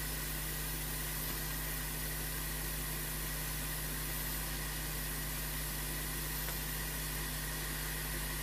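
Steady low hum with an even hiss over it, unchanging throughout; no separate sounds stand out.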